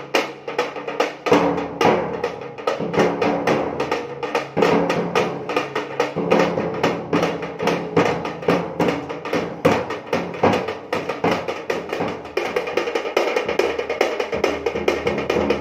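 Drumming on a double-headed barrel drum struck with a stick, with a hand-held frame drum, in a fast steady beat. The pattern changes about twelve seconds in.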